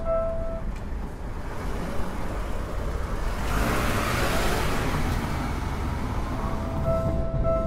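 A level-crossing warning bell rings in even pulses and stops about half a second in. A road vehicle passes over the crossing in the middle, its noise swelling and fading over about two seconds. The crossing bell starts ringing again near the end.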